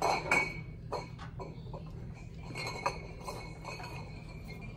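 Glass bottles clinking against each other as they are handled and moved about. There are several short clinks with a little ringing: the loudest come in the first half-second, with one sharp clink about three seconds in.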